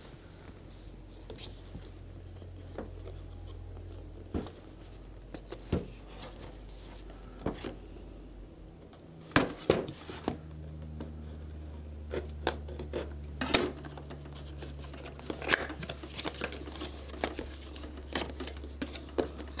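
Scissors snipping through the seal sticker on a cardboard phone box, with scattered clicks and rustling as the box is handled, over a low steady hum.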